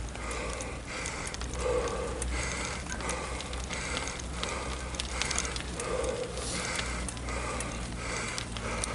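Heavy, rhythmic breathing of a cyclist riding, about one breath a second, over a steady low rumble from the ride and a few small ticks.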